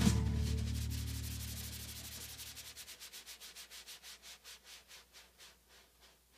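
Background song fading out. A steady beat of percussion hits, about four a second, grows quieter and dies away near the end, and a low bass note cuts off about halfway through.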